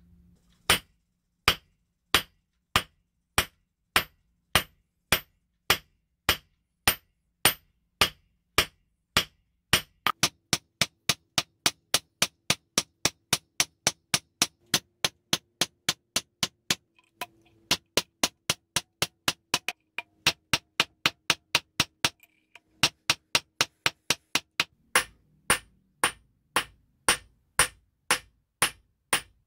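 Hammer blows on a small silver bar lying on a steel bench block, each a sharp metallic strike, as the bar is forged and stretched into a ring blank. The blows come steadily, less than two a second at first, then quicken to about three a second around ten seconds in, with brief pauses.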